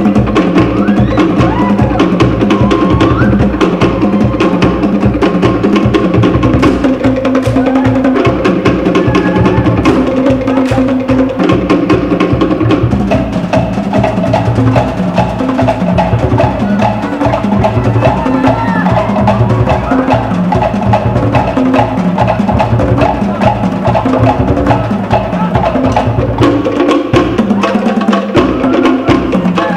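Cook Islands drum ensemble playing a fast ura pa'u drum-dance rhythm: wooden slit drums (pate) clattering in rapid, steady strokes over a deep skin drum.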